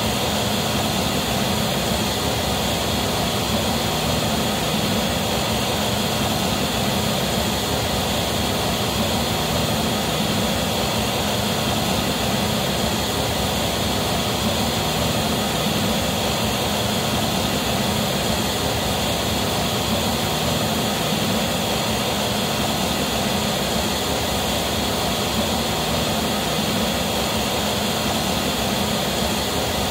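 Steady test noise, typical of pink noise, played through JBL SRX PA loudspeakers to measure the sound system with Smaart. It holds a constant level with no breaks.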